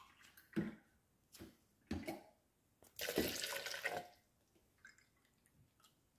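Milk pouring and splashing into a blender jar over chopped bananas: a few short splashes, then one longer pour of about a second, three seconds in.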